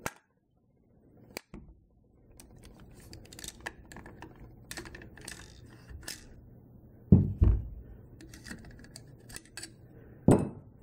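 Small metal clicks and knocks of an AR-15 rifle being handled and partly taken down, with two louder thumps, one about seven seconds in and one about ten seconds in. The first two seconds are silent.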